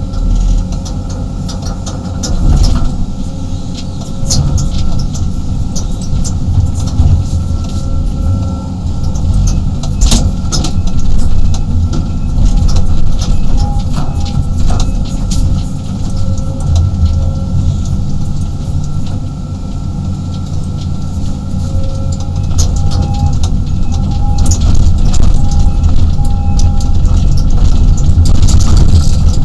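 A 35-ton excavator's diesel engine and hydraulics running under load, heard from inside the cab as a steady low rumble with a faint whine. Scattered clicks and knocks come through as the bucket works and drags loose dirt, and the engine grows louder near the end.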